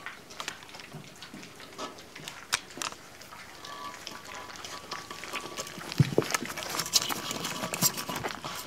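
A litter of puppies eating dry kibble from a stainless steel feeding dish: a busy, irregular clatter of chewing, crunching and kibble clicking against the metal, with a few louder knocks in the second half.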